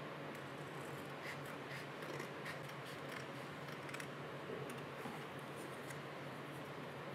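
Scissors snipping through a thin plastic sheet, a run of small sharp cuts, over a faint steady low hum.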